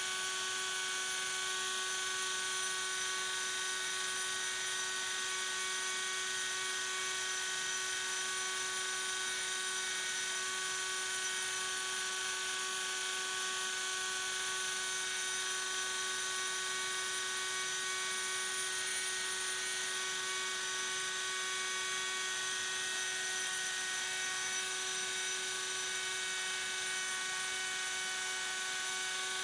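Small electric milling spindle on an industrial robot running at steady speed: a constant hum with several steady high tones.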